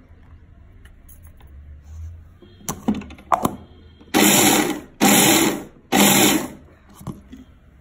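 Electric mixer grinder with a steel jar pulsed in three short runs of under a second each, grinding dry coconut, chilli powder and garlic cloves into a coarse powder. A few light knocks come first.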